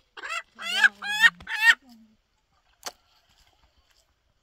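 Rooster crowing: one crow of four quick notes over about a second and a half, the last note held. A single sharp click follows about a second later.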